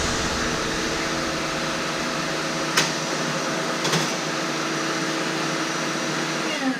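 Vacuum cleaner running steadily as it sucks fiberglass drilling dust out of a rocket body tube, with two short clicks in the middle; it is switched off and winds down near the end.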